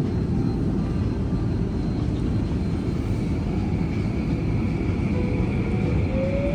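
Inside a C951 metro train, a steady low rumble, then about five seconds in the traction motors begin a rising whine as the train starts to pull away.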